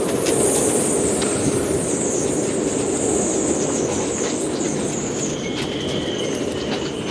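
Storm-force wind blowing through a moored sailboat's rigging: a steady rushing noise with a high, wavering whistle that slowly slides down in pitch. A lower whistle takes over about five seconds in, with a few faint ticks.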